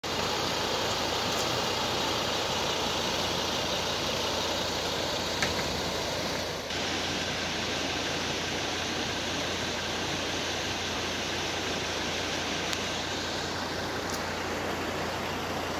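Steady rushing noise over a low, even engine hum, as from a running vehicle, with a brief dip about six and a half seconds in.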